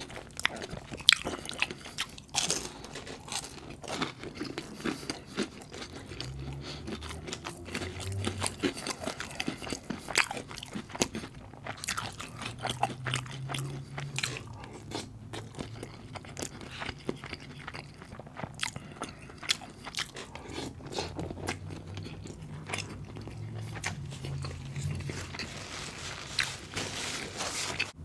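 A person chewing and biting food close to the microphone, with many sharp crunches and clicks.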